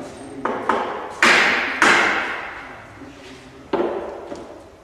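Hammer blows on the planking of a wooden boat under construction: five sharp strikes at uneven intervals, the two loudest about a second in and just after, each ringing on for a moment after the blow.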